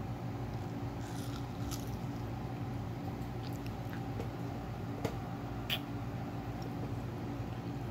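A baby chewing watermelon: a few short wet mouth smacks and clicks, the sharpest about five seconds in, over a steady low hum.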